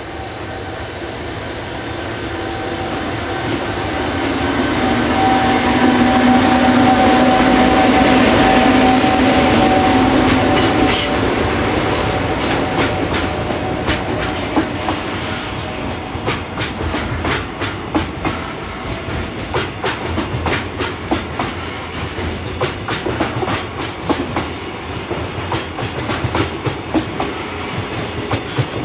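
EF510 electric locomotive passing with a steady hum that swells as it draws near. Then a long train of container flatcars passes, clattering over the rail joints in a quick run of wheel clicks.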